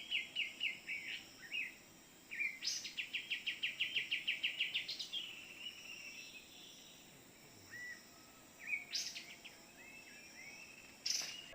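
A songbird calling in rapid runs of short, evenly repeated chirps, about ten a second, two runs of a couple of seconds each, then a few short rising notes later on. A sharp click comes just before the end.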